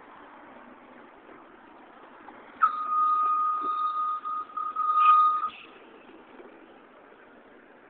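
A steady high electronic beep from an NovaBus RTS-06 transit bus's warning beeper, lasting about three seconds with two short breaks, over the low running noise of the bus at the stop.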